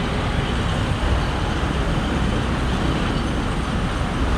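Steady hiss of road traffic with a continuous low rumble.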